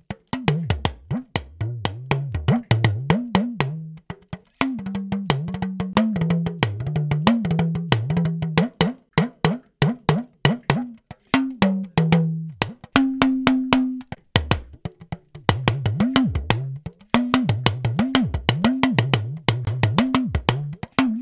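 Talking drum recording played back in a fast rhythm of sharp strokes, its low note bending up and down as the drum's tension is squeezed and released, with a short break about four seconds in and one held higher note past the middle. This is the AKG C3000 condenser-mic track, mixed with EQ, compression and a little tube saturation.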